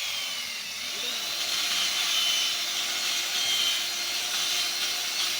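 Stihl chainsaw running at a steady speed, sawing into tree wood.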